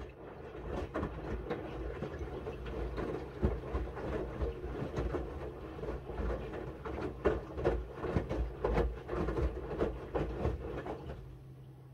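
Miele W1 front-loading washing machine's drum turning with a wet load of linen bedding, an uneven run of thuds and rattles over a steady hum. The tumbling stops near the end, leaving only the low hum.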